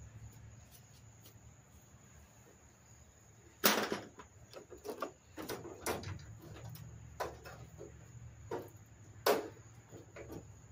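Irregular knocks and clatter of tools and parts during the hands-on teardown of an E-Z-GO golf cart, with one sharp loud knock a few seconds in and another near the end.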